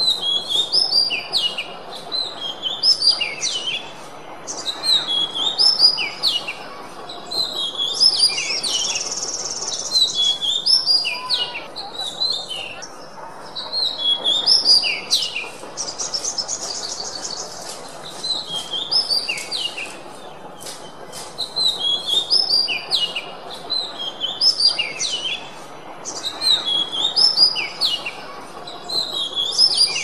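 Oriental magpie-robin (kacer) singing: a continuous run of varied, clear whistled phrases, with short rapid trills mixed in now and then.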